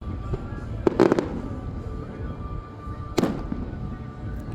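Fireworks going off: a quick string of sharp bangs about a second in, then a single heavier bang a couple of seconds later.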